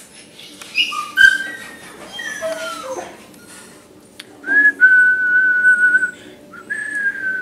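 Frightened shelter dog whining: a few short high whimpers and a falling whine, then two long, thin, high-pitched whines near the end.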